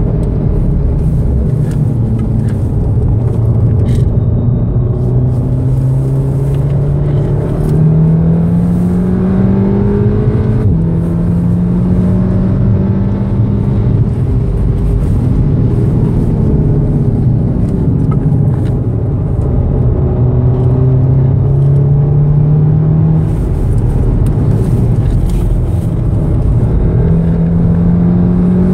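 2014 VW Golf VII R's turbocharged 2.0-litre four-cylinder engine, heard inside the cabin over road and tyre rumble, pulling hard at high revs. Its pitch climbs, drops sharply at an upshift about ten seconds in, eases lower through the middle and climbs again near the end.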